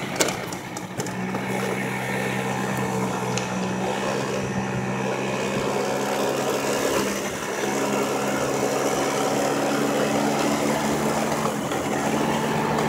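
Small scooter engine running steadily at cruising speed, a constant low hum over rushing road and wind noise. A sharp knock comes just after the start.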